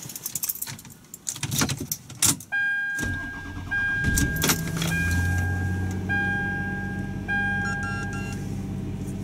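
Keys jangling and clicking, then a car engine starts about three seconds in and settles into a steady idle. A repeated electronic chime sounds over the start and idle.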